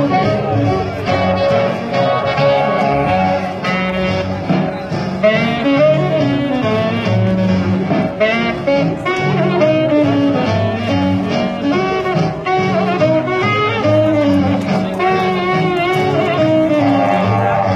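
Swing jazz music playing steadily, with saxophone and brass carrying the melody.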